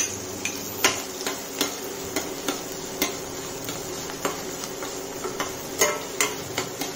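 Spatula stirring onion and green chillies in a kadhai, tapping and scraping against the pan in irregular clicks, one or two a second.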